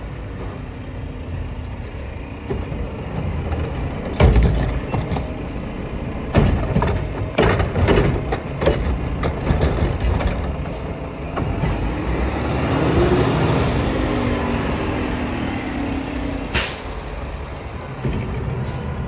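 Mack LR garbage truck pulling up to a curbside cart: engine running, with several clanks and bangs, then the engine revving up and down to drive the hydraulic Curotto-Can arm, and a short air-brake hiss near the end.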